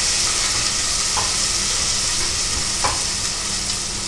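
Onions frying in sesame oil in a pressure cooker pan with whole spices, a steady sizzle as they are sautéed, with a couple of light clicks about a second and three seconds in.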